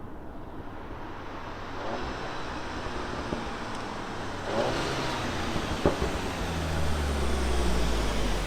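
Seat Leon Cupra 300's 2.0 turbo four-cylinder through its stock exhaust, heard from outside the car, running at low revs with one sharp crack about six seconds in, then a deep steady drone that grows louder toward the end.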